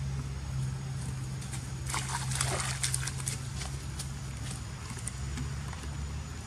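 Young macaques scuffling, with a short cluster of squeals and scrabbling noise about two to three seconds in, over a steady low hum.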